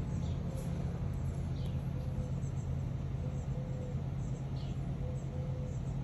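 Small birds chirping now and then, short high downward chirps, over a steady low hum.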